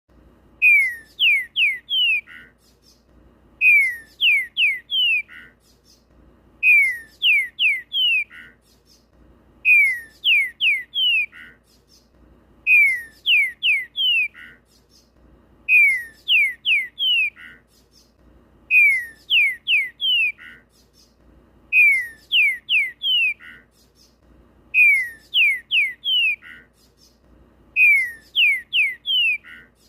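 Green-winged saltator (trinca-ferro) singing in full form, repeating the same loud whistled phrase about every three seconds. Each phrase is a run of quick downward-sliding notes ending on a lower wavering note.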